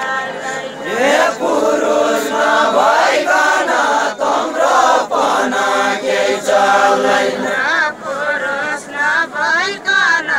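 Unaccompanied Deuda folk singing: a group of voices chanting a verse together in long held, wavering notes.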